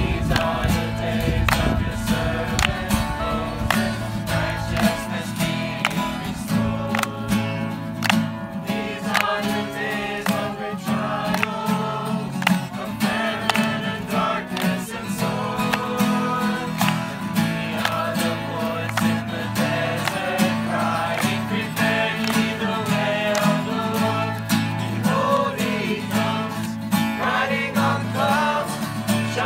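Four acoustic guitars strumming a steady upbeat campfire song, with a group of voices singing along.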